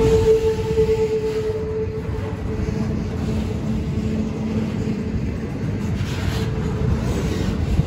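Double-stack intermodal well cars of a freight train rolling past with a steady rumble of wheels on rail. A high steady whine fades out over the first two seconds, and a lower hum rises for a couple of seconds in the middle.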